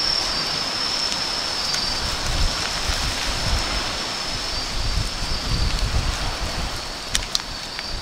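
Wind rushing and gusting against the microphone, with uneven low buffeting throughout and a steady high-pitched trill above it; a couple of short clicks near the end.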